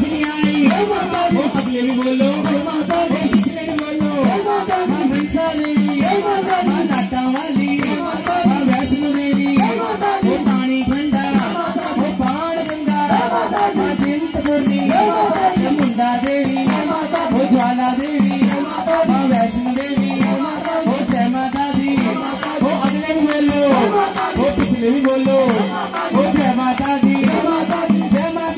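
Live Hindu devotional bhajan: voices sing into microphones over a dholak and small hand cymbals, with a jingling rattle keeping a steady beat.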